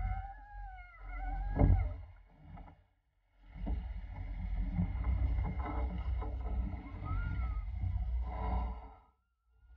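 Wind buffeting the microphone of a sailing yacht under way, with a low rumble and the rush of water along the hull; the sound cuts out briefly twice.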